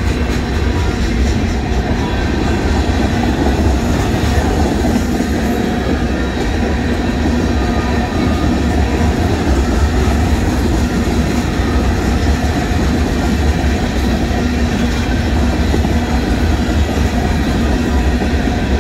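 Freight train cars, boxcars and then tank cars, rolling past close by: a steady, loud rumble of steel wheels on the rails.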